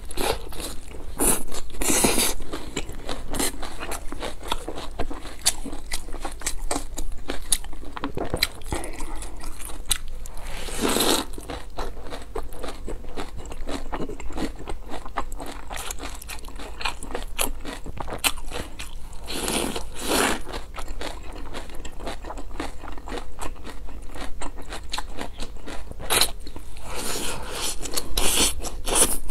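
Close-miked eating: a fried dumpling bitten and chewed with crunching and many small wet mouth clicks, with a few louder, longer stretches of crunching spread through.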